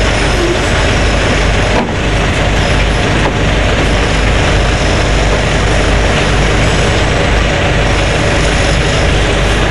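Mobile crane's engine running steadily under load during a lift, heard from inside the operator's cab: a loud, constant noise over a low drone.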